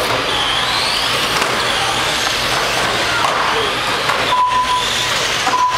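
Several radio-controlled GT3 touring cars racing on an indoor carpet track, their motors whining up and down in pitch as they are throttled through the corners, over a dense steady hiss. Two short steady beeps sound, one about two-thirds of the way in and one near the end.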